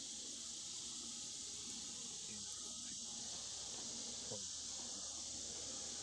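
Chorus of annual cicadas: a steady, unbroken high-pitched buzz.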